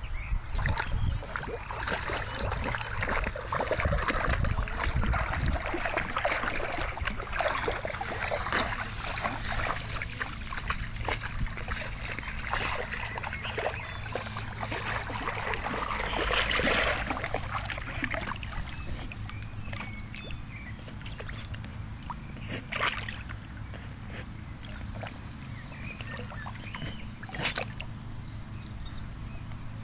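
Water sloshing and splashing as an English bull terrier wades through a shallow, muddy stream. The splashing is busy for the first half and quieter later, with a couple of sharper splashes near the end.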